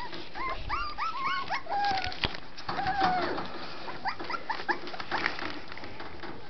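Young Scottish Terrier puppies whimpering in many short, high, rising squeaks, some overlapping, while they feed from a bowl of solid food, with scattered short clicks.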